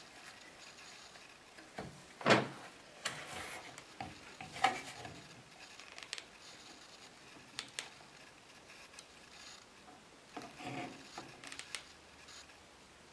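Hand handling of a plastic sanding block and its small metal hinge brackets: scattered clicks, taps and short scraping rattles, with two louder clatters about two and four and a half seconds in.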